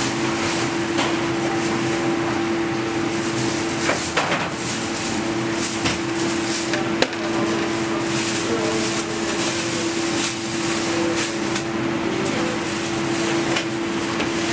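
Bakery work noise: a steady machine hum holding one tone, with scattered light knocks and clatter, one sharp knock about seven seconds in.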